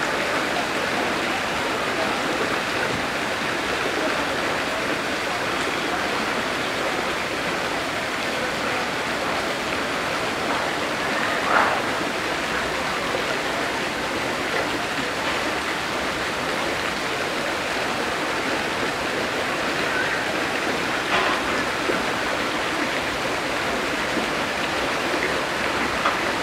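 Steady rush of running water from the enclosure's stream, with a couple of brief faint higher sounds about midway and later on.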